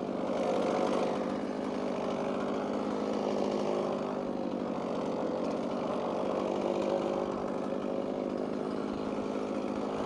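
Stihl MS311 two-stroke chainsaw running at a steady high speed, cutting a section off a white oak log.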